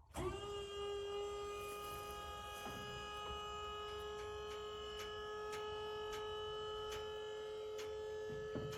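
Machine whine: a steady high-pitched hum that starts suddenly and settles to a constant pitch, with faint ticks repeating about twice a second.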